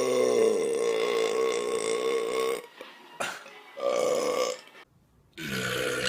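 A person belching: one long drawn-out belch with a wavering pitch that ends about two and a half seconds in, a short belch about four seconds in, and another long belch starting near the end.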